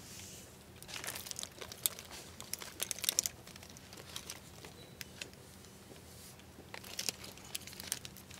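Belts being handled on a store rack: metal buckles and plastic hangers click and rattle against each other. The clicking comes in clusters, from about a second in to about three seconds in and again near the end.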